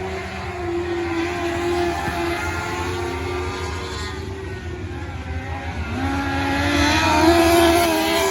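Several micro sprint race cars' engines running at high revs around the track, several pitches at once. About six seconds in, one engine's pitch rises and the sound grows louder as a car comes closer.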